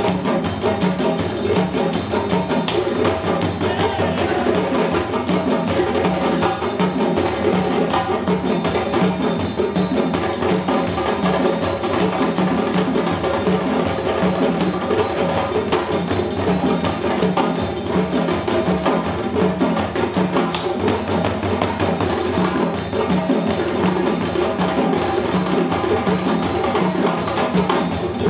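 West African drum ensemble of djembes and dunun bass drums playing together in a steady, continuous rhythm.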